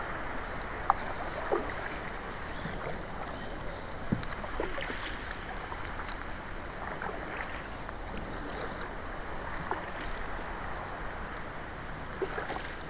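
Kayak paddle strokes splashing in the sea and water washing along the hull of a Feelfree Moken 10 Angler kayak, over a steady rush of wind and water. A few sharp knocks stand out, the loudest about a second in and about four seconds in.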